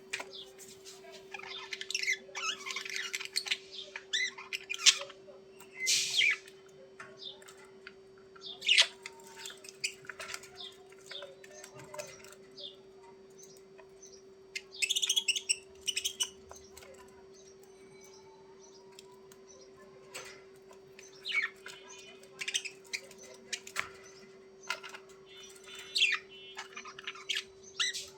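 Budgerigars chirping and squawking in quick clusters of short, high calls, with a quieter lull a little past the middle. A steady low hum runs underneath.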